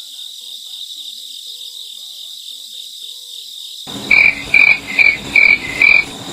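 Night ambience of crickets chirping steadily, with a frog croaking five times in quick succession in the last two seconds.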